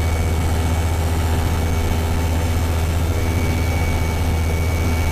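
Hi-Max ultralight's engine and propeller running steadily in flight, heard from inside the cockpit as an even drone with a strong low hum.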